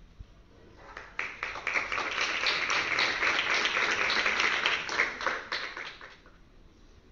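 Applause: many people clapping, starting about a second in, holding steady, then dying away near the end.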